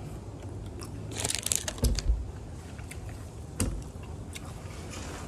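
A person chewing and biting food close to the microphone, with a cluster of crunches about a second in and a single sharp click near the four-second mark.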